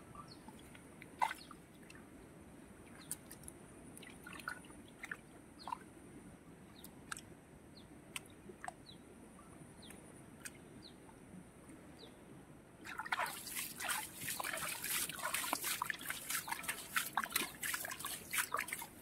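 Hands working in a shallow puddle of muddy water: scattered drips and small splashes at first, then, about two-thirds of the way in, fast, continuous splashing as the water and mud are scooped out by hand.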